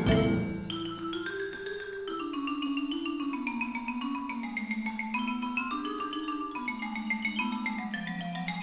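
Background music: a melody of short struck notes stepping up and down over a lower moving line.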